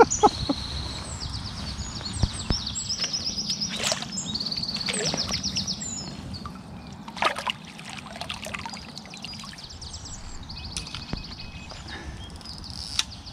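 Water sloshing as a landing net holding a fish is lowered into the lake to release it, while a songbird sings quick, high trills over and over, loudest in the first half.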